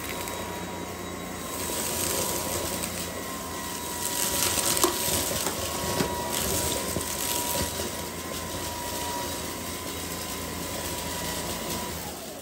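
Lubluelu cordless stick vacuum running with a steady whine as its motorised brush head is pushed back and forth over carpet, with scattered crackles and ticks as debris is sucked up.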